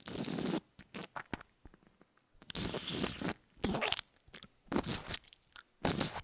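A sound effect made of about five short, rough scraping or crunching bursts with sharp clicks between them, starting and stopping unevenly.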